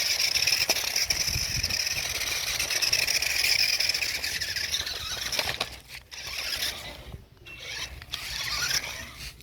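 Toy RC jeep's electric motor and gearbox whining at a high, steady pitch as it drives, cutting out briefly twice in the second half and starting again.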